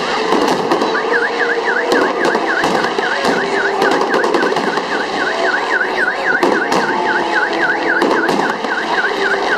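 Fireworks crackling and banging. About a second in, a car alarm starts with a warbling tone that sweeps quickly up and down about three times a second.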